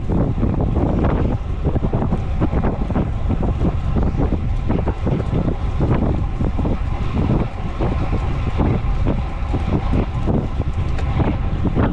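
Wind buffeting a camera microphone on a road bike moving at about 30 to 35 km/h, a steady rough rushing that is heaviest in the low end and flutters constantly.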